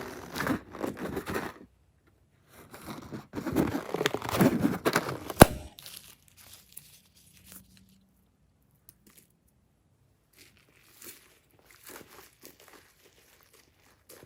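Crinkling, tearing handling sounds of a rubber balloon being worked open, with one sharp snap about five seconds in; after that only faint scattered ticks.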